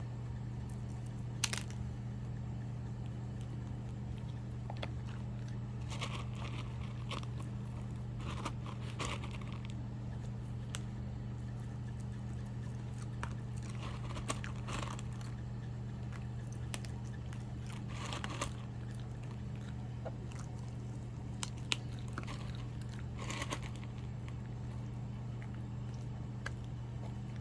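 A dog chewing and crunching food in short, scattered bouts with pauses between them, over a steady low hum.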